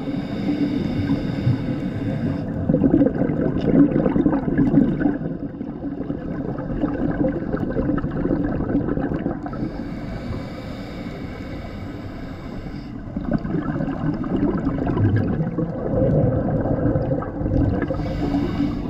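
Scuba diver breathing through a regulator underwater: a hissing inhale, then a long bubbling exhale, the cycle repeating about every eight seconds.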